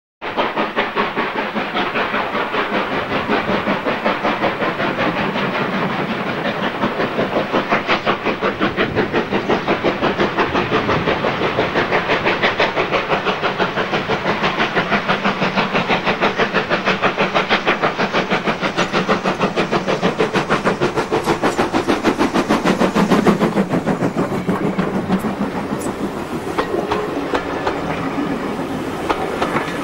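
Steam locomotive working a train of coaches, its exhaust beating in a fast, steady rhythm as it approaches and passes. Over the last few seconds the coaches roll close by with the clatter of wheels over rail joints.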